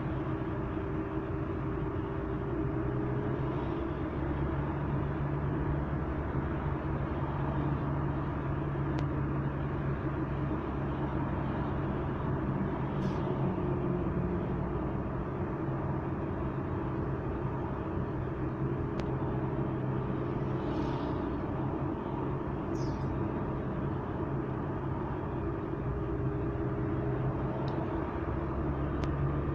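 Car driving in traffic, heard from inside the cabin: steady engine hum and road noise that rises and eases slightly with speed.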